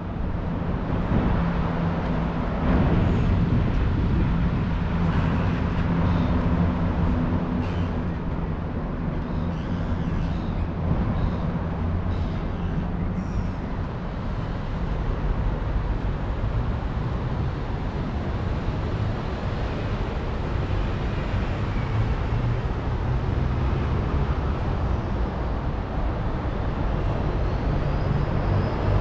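City street traffic: a vehicle engine running steadily close by, its low hum over the general noise of traffic, with a few faint clicks.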